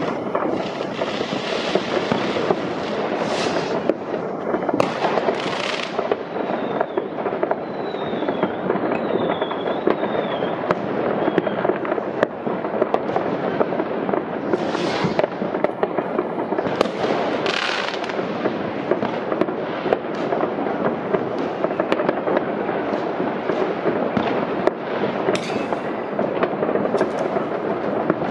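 Many fireworks going off at once: a continuous barrage of bangs and crackling, with several louder bursts. A wavering whistle runs through it from about six to eleven seconds in.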